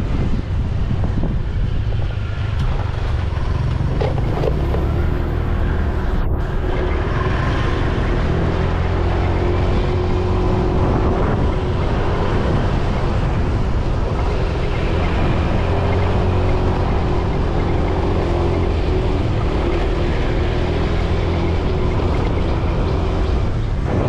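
Motorbike engine running steadily as it rides along a road, with wind rushing over the microphone.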